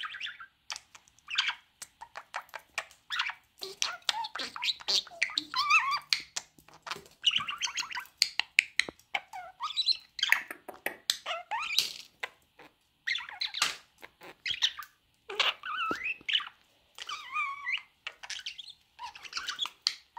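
Budgerigar chattering and warbling close up: a busy stream of short, wavering chirps and squawks mixed with many sharp clicks.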